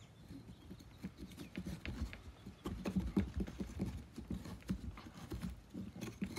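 A small carving tool scraping and shaving the wet flesh from the inside of a pumpkin's carved eye opening: a run of quick, irregular scraping strokes that get louder and faster about halfway through.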